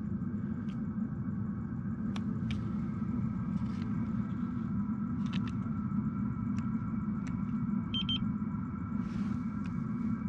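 Vevor diesel heater running, heard at its outside outlet as a steady low rumble with a faint even whine above it. A short electronic beep comes about eight seconds in, with a few faint clicks scattered through.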